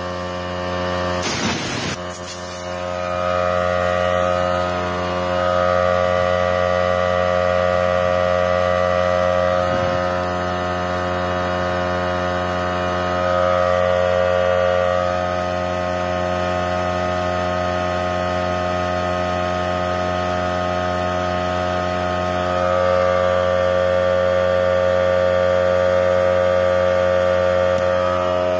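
Hyper Tough 3-gallon oil-free air compressor's electric pump running steadily while a car tire is inflated, its hum swelling slightly a few times. A short hiss of escaping air comes near the start.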